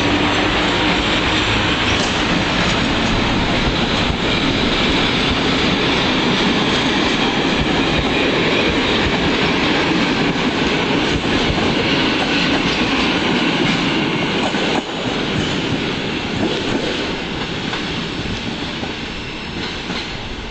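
Departing passenger train hauled by an ET22 electric locomotive, its coaches rolling past with wheels clacking over the rail joints. The loud rolling noise drops about three quarters of the way through and fades as the train pulls away.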